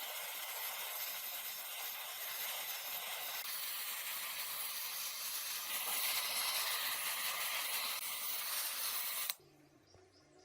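Steady hissing noise, like air or spray rushing out, that cuts off suddenly near the end.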